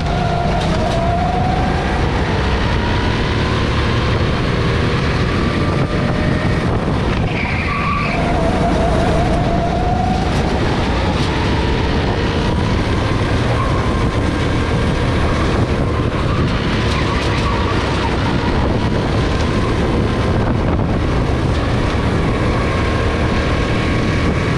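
Go-kart engine running hard, heard from on board the kart, its pitch rising and falling as the driver accelerates and lifts through the corners. A brief high squeal cuts in about seven seconds in.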